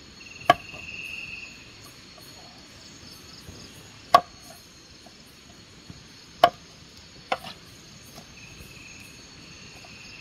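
Long knife chopping fish on a wooden cutting board: a few sharp chops a couple of seconds apart, the last a quick double. Crickets chirring steadily behind.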